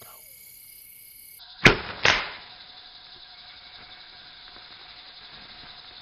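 A hunting shot: a sharp, loud crack about a second and a half in, then a second sharp report about a third of a second later that dies away more slowly.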